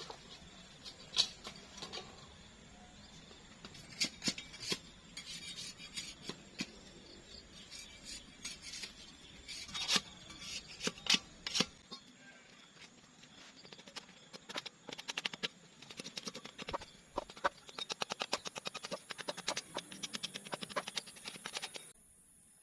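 Food preparation: scattered knocks and clicks of kitchen utensils, then a long run of rapid taps like a knife chopping on a board, which stops suddenly near the end.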